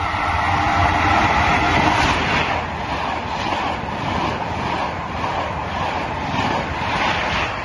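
Italian InterCity passenger train passing at speed close by, its coaches rushing past with a regular clatter of wheels over the rail joints at about two beats a second. The noise builds as the train arrives and begins to fade near the end as the last coaches go by.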